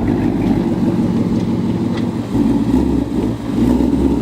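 Ford Mustang engine running steadily at low revs through its stock exhaust, swelling slightly about two and a half seconds in and easing briefly just after three seconds.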